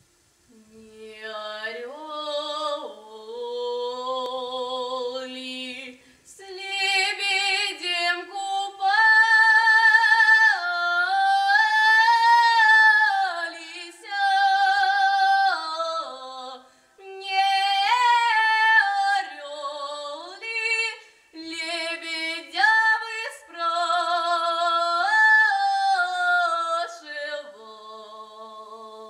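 A girl singing a Russian folk song solo and unaccompanied, in long phrases of held, gently wavering notes with short breaks for breath between them.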